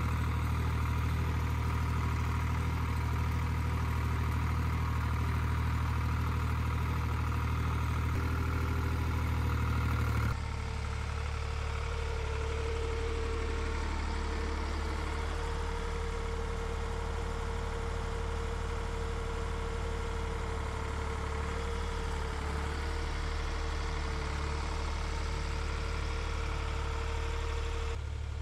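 Vintage Lamborghini tractor's diesel engine running steadily at constant speed. About ten seconds in the sound drops a little and a steady higher whine comes in above the engine.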